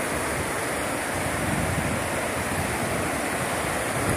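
Swift river water rushing steadily past a stony bank, with wind buffeting the microphone in low rumbles.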